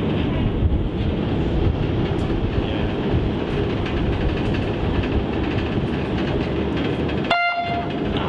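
Loud, steady low rumble of a water taxi's engine mixed with wind on the microphone. Near the end it cuts out for a moment while a short high tone sounds.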